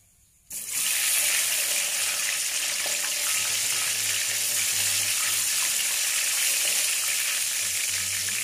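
Hot oil in a wok sizzling steadily and loudly around whole tomatoes frying in it, starting abruptly about half a second in.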